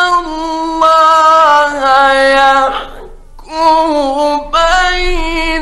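Male Qur'an reciter in the melodic mujawwad style, holding long, ornamented notes with slow steps in pitch, breaking off briefly about three seconds in before taking up the next held phrase.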